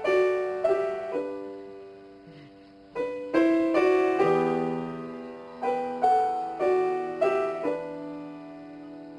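Piano played slowly in short phrases of a few notes. Each phrase is struck and then left to ring out and fade.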